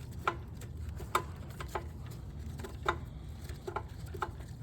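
Irregular sharp clicks and ticks, about eight in all, of a hand tool working on the Phillips head screws of a snowblower's electric-start cover, over a low steady hum.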